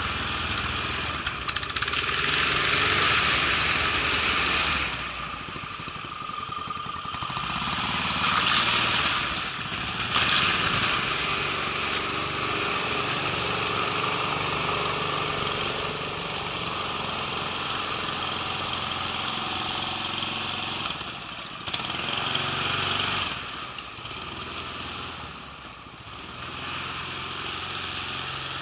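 Small gas engines of Mokai jet-drive kayaks running, with the engine note rising and falling as the throttle is opened and eased. The loudest surges come about two seconds in, around eight to ten seconds in, and again past twenty seconds.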